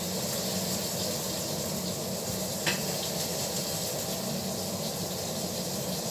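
Steak sizzling steadily as it sears in a hot frying pan, with one short click about halfway through.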